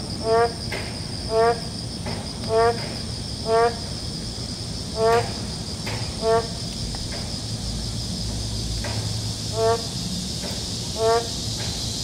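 Boreal digging frogs (Kaloula borealis, 맹꽁이) calling: short nasal croaks about once a second, with a two-second pause near the middle. Under them runs a steady high-pitched insect trill.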